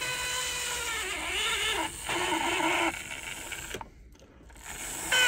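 Ringfield motor of a 1980s Hornby APT model train's power car running along the track with a whine that wavers in pitch as its speed changes. It sounds like a very dry bearing inside, which the owner puts down most likely to lack of oil. The sound drops away for about a second near the end, then returns.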